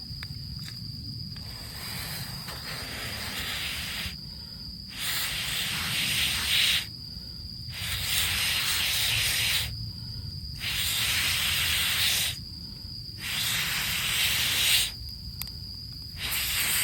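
Someone blowing steadily on a smouldering campfire of rain-soaked wood to fan it into flame. Six long blows of about two seconds each, with short pauses for breath between them.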